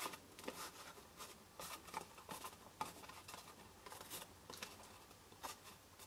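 Faint rustling and light scratching of a paper cube box and black shimmer ribbon being handled, the ribbon slid around the box, with scattered soft clicks.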